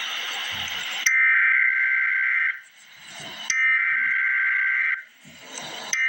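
Emergency Alert System SAME header: warbling two-tone digital data bursts, each about a second and a half long with a second's pause between, the coded start of a weather alert. Two full bursts sound after about a second of static-like hiss, and a third begins right at the end.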